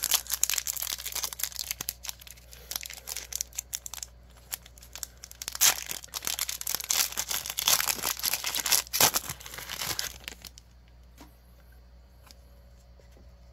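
A Pokémon trading card booster pack's foil wrapper being torn open and crinkled in the hands, a dense run of crackling and tearing that stops a little after ten seconds in.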